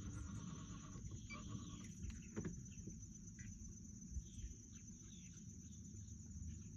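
Faint bird chirps in short falling notes, mostly in the second half, over a low steady rumble.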